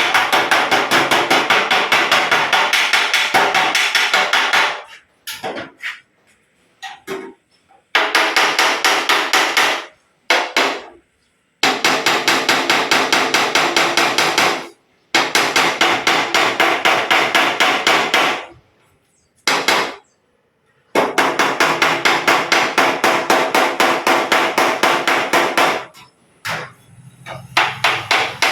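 Body hammer striking a dented steel car panel against a dolly held underneath, in runs of rapid, even taps several a second with short pauses between runs. This is hammer-and-dolly work to raise the dented metal.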